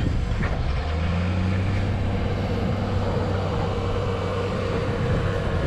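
Large snowplow truck's engine running with a steady low drone, with wind buffeting the microphone.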